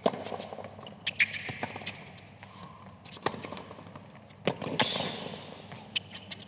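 Tennis rally on a hard court: sharp racquet-on-ball hits and ball bounces a second or two apart.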